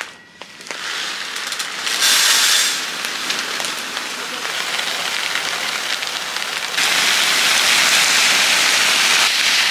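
Dry rice grains pouring from a plastic bag into a wooden rice box, a steady rain-like hiss that surges briefly about two seconds in and runs louder for the last few seconds.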